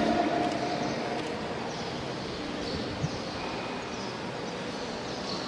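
A held sung note fades out about a second in, leaving the steady murmur of a large, reverberant church hall with a few faint high chirps and one small tick about three seconds in.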